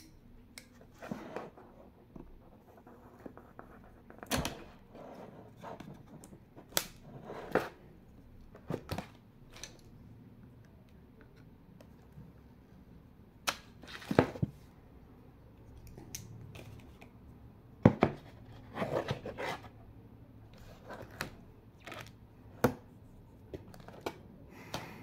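Handling noise from a black frame display case with clear film: irregular clicks and knocks against a cardboard box, with short rustles of the film as a folding knife is worked out of it. The loudest knock comes about three quarters of the way through.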